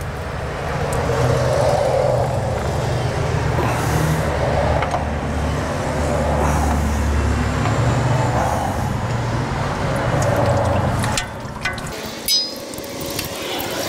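A steady low mechanical rumble that swells and fades and drops away about eleven seconds in, followed by a few light metallic clicks as the oil filter pliers come off the filter.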